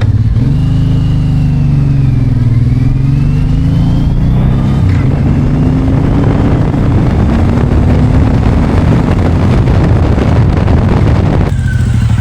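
Suzuki M109R's 1783 cc V-twin engine pulling on a ride, its pitch rising and falling and then climbing steadily as it accelerates, over wind rush. Near the end it drops to slower, even pulses. The engine is freshly rebuilt after water damage and running normally.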